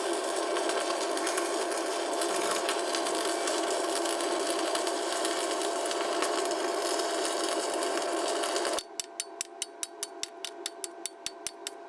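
Stick-welding arc from a Keygree Flux-155 inverter at about 85 amps: a steady crackling sizzle as the electrode holds the arc under load. It cuts off abruptly near the nine-second mark, and then a chipping hammer taps quickly on the fresh bead, knocking off the slag.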